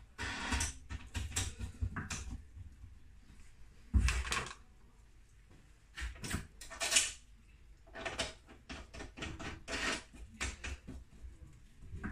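Scattered clicks and knocks of metal and plastic parts being handled as a bolt, washer and hand-wheel nut are fitted to a lawn mower's lower handle, with one louder knock about four seconds in.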